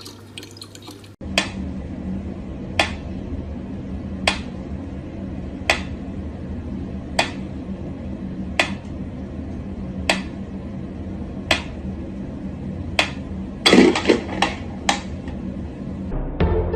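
Mechanical pyramid metronome ticking slowly and evenly, about one tick every second and a half, over a steady low hum. Near the end a quick run of extra clicks and knocks breaks the rhythm.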